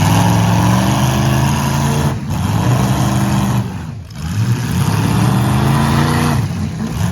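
Demolition derby car engine revving hard. Its pitch climbs again and again and drops off briefly about two seconds in, four seconds in and near the end.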